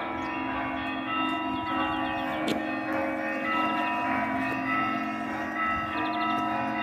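Russian Orthodox church bells ringing together in a peal: the larger bells' tones hang under quick runs of small, high bells. A sharp knock stands out about two and a half seconds in.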